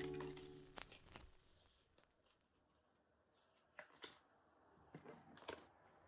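Background music fading out in the first moment, then near silence broken by a few faint clicks and rustles from handling the paper SIM-ejector card and the cardboard iPhone box.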